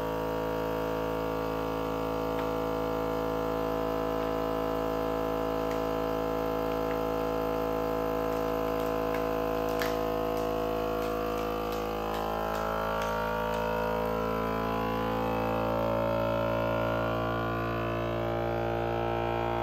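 FoodSaver vacuum sealer's pump running with a steady hum, drawing the air out of a bag; the hum wavers a little in its second half.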